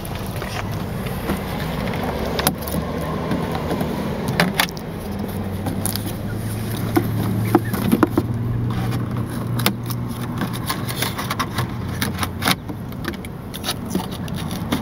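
Scissors snipping and scraping at packing tape on a cardboard live-bird shipping box, with scattered sharp clicks and crackles. A steady low hum of the car runs underneath.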